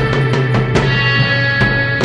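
Intro music with a steady drum beat under sustained tones.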